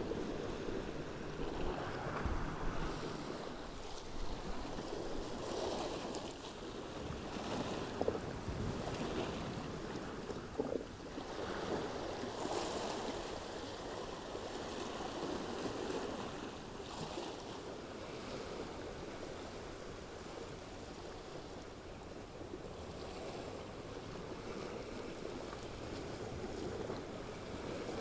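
Sea waves washing and splashing against the shore, swelling and easing every few seconds, with wind buffeting the microphone.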